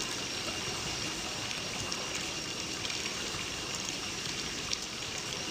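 Nebulizer air compressor running, a steady hiss with a faint high whine.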